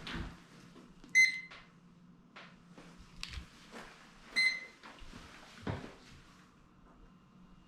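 Two short electronic beeps, about three seconds apart, from an appliance control, with light clicks and knocks of handling between them over a low steady hum.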